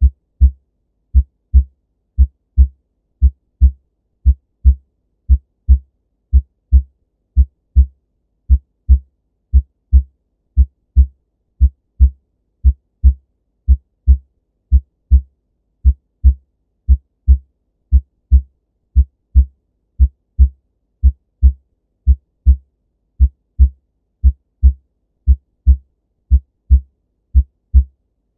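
Normal human heart sounds: a steady, even rhythm of paired low thumps, the 'lub dub' of the first and second heart sounds as the heart valves close.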